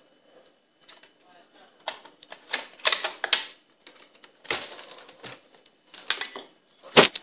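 Irregular clicks, knocks and rustling of small household objects being handled, with a louder clatter near the end.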